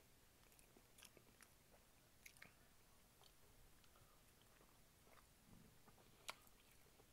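Faint chewing and wet mouth clicks of a person eating oxtail meat off the bone by hand, with one sharper click a little after six seconds in.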